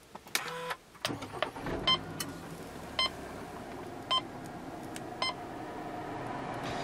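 Kia Sorento's engine started by push button: it catches about a second in and settles into a steady idle. Over the idle, a warning chime sounds four times, about once a second.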